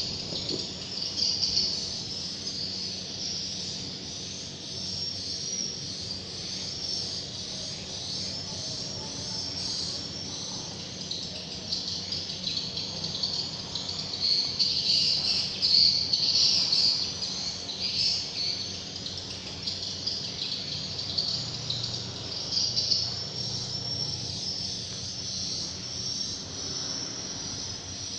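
Birds chirping continuously: a dense chorus of short, high chirps overlapping one another, a little louder in places.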